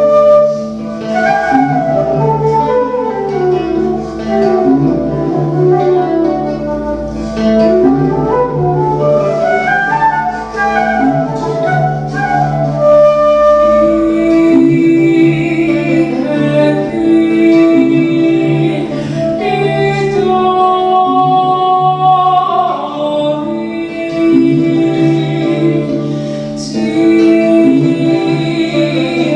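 Live medieval-style folk music: a flute melody winding over a steady low drone, moving to longer held notes about halfway through.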